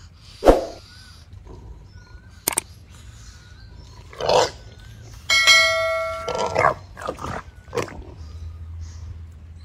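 A wild boar piglet squealing and screaming in harsh bursts as a Komodo dragon bites it, with one long high-pitched squeal about halfway through and more short cries after it.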